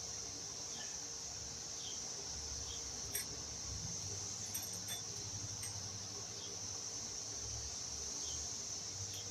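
Steady high-pitched insect chorus running throughout, with faint short chirps about once a second. Over it come a few light metallic clicks about three to six seconds in, from a bicycle chain being worked onto a rear sprocket.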